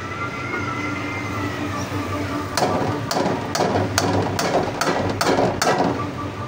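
A metal ladle stirring rice and chana dal in a metal cooking pot. After a steady hum for the first couple of seconds, the ladle knocks against the pot's side about two times a second, eight times in all.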